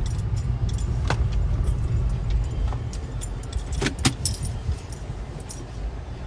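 Car heard from inside the cabin: a steady low rumble, with scattered sharp clicks and rattles, the loudest cluster just before four seconds in.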